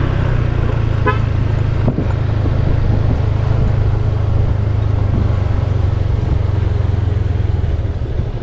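Motorcycle engine running steadily while being ridden, picked up close from the rider. A short horn toot about a second in.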